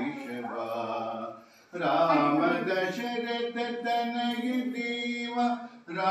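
Devotional chanting sung by a single voice in long, held notes. It breaks off briefly about a second and a half in and again near the end.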